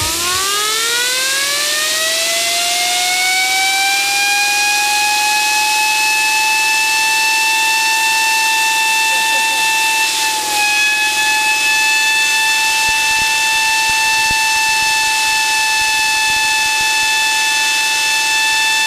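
Fidget spinner driven by a jet of compressed air from a long nozzle: a whine that rises quickly in pitch over the first few seconds, then holds at a steady high pitch over the hiss of the air, with a brief dip about ten seconds in.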